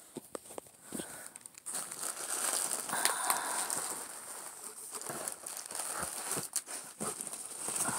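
Plastic packing material, bubble wrap and plastic bags, crinkling and rustling with many irregular small crackles as the contents of a shipping box are moved around; it grows louder about two seconds in.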